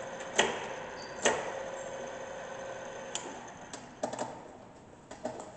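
Gear-head drill press running in tapping mode with a steady motor and gear hum, and two sharp clunks about half a second and a second and a half in as the spindle reverses. The hum then fades as the machine slows, and a few lighter clicks of the controls follow.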